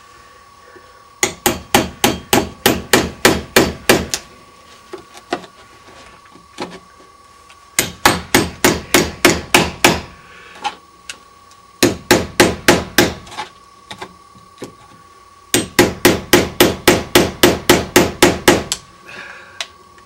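Hammer driving a wood chisel into a door jamb, in four quick runs of about four or five sharp blows a second with short pauses between. The chisel is cutting the deadbolt strike hole lower so the misaligned bolt can enter it.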